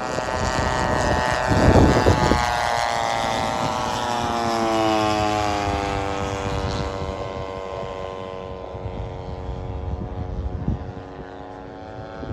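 Petrol engines of radio-controlled scale warbird models, one of them a 35 cc EME 35 two-stroke, droning as the planes fly past in formation. The note drops in pitch as they go by, then fades. There is a loud rumbling rush about two seconds in.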